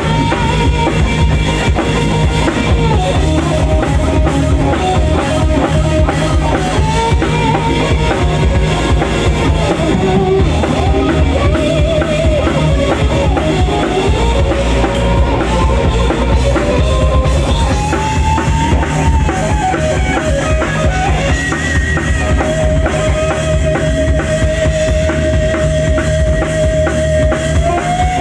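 Live rock band playing an instrumental passage: electric guitars, bass and a full drum kit with bass drum and snare. A lead melody line wavers and bends, then holds one long note near the end.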